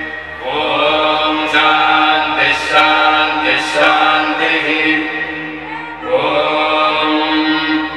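Devotional background music: a chanted hymn with several voices over a steady drone. New phrases begin about half a second and six seconds in.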